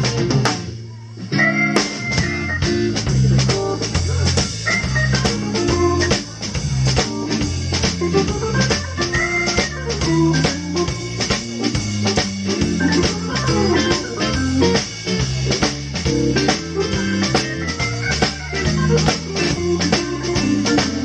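Organ trio music: electric organ playing lead lines over a drum kit keeping a steady beat, with guitar behind. The band drops out briefly about a second in, then comes back in.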